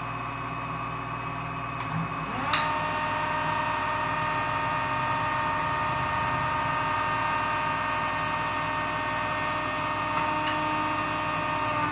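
Woodworking jointer switched on with a click, its motor and cutterhead spinning up in a quick rising whine to a steady running whine, then switched off near the end so the pitch starts to fall as it spins down.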